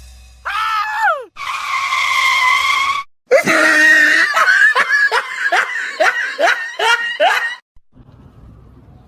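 A shrill cry that falls in pitch, then a held high scream, then a run of about ten short, evenly spaced, falling laugh-like cries that stop abruptly a little before the end.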